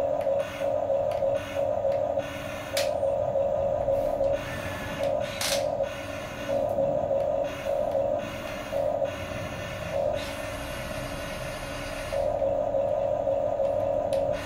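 Huina 1550 RC excavator's small electric gear motors whining in short stop-start runs as the boom, arm and bucket are worked, with a longer continuous run near the end and a few light clicks.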